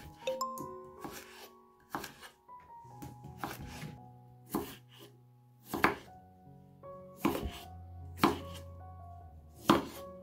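Chef's knife cutting raw peeled potatoes into chunks on a bamboo cutting board, each cut ending in a sharp knock of the blade on the wood, about once a second.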